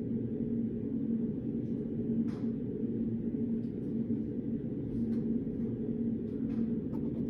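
Steady low hum of a reading room's background noise, with a few faint, brief ticks and rustles scattered through it.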